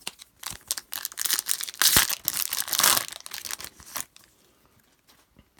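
A foil trading-card pack wrapper crinkling and tearing as it is ripped open, a dense crackle with sharp snaps that fades about four seconds in.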